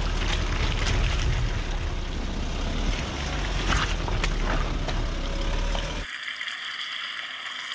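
Land Rover Discovery's 3.0-litre turbo V6 diesel running low and slow as the heavy SUV crawls down a muddy slope under hill descent control, its tyres working through the mud with a few scattered clicks. About six seconds in, the low rumble cuts off abruptly, leaving only a thin hiss.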